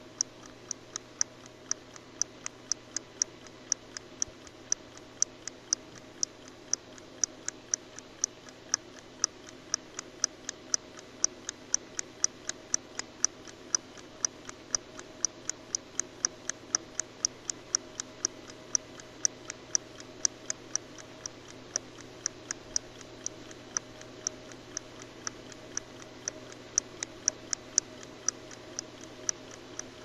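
Clock ticking steadily at about two ticks a second.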